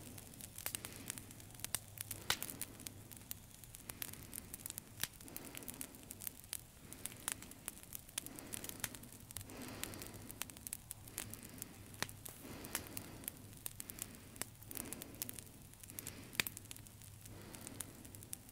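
Crackling static with many scattered sharp clicks over a low steady hum.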